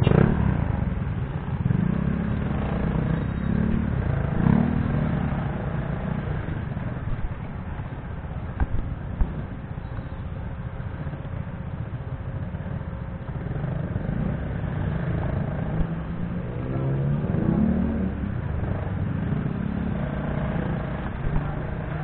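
Motorcycle engines and street traffic in slow, stop-and-go riding. Engine revs rise and fall several times over a constant rumble.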